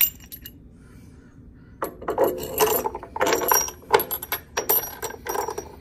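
Steel body-mount bolt and large washer clinking and rattling as they are fitted by hand through a body-mount spacer into the frame mount. The clinking starts about two seconds in and goes on as a quick, irregular run of small metal clicks.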